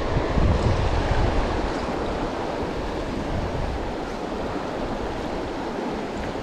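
Fast river water rushing over rapids, a steady noise, with strong wind gusting on the microphone.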